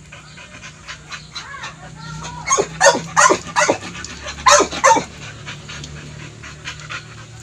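A dog barking in quick runs of sharp, falling-pitched barks: about five in a row around the middle, then three more a second later. Faint whines come before them.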